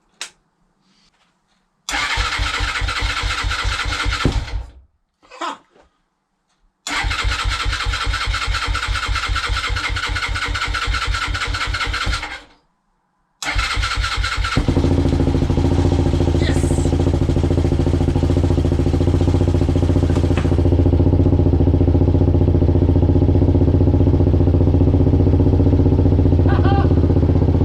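Suzuki DR 125's single-cylinder engine being cranked on its electric starter in three bursts, the first two without catching. On the third try, about fifteen seconds in, the engine fires and settles into steady running: the repaired starter turning the engine over and starting it.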